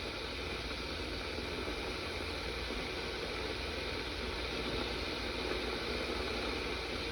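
Paderno 1.7-litre electric kettle heating water toward the boil: a steady rushing hiss from the water, not yet at a full boil.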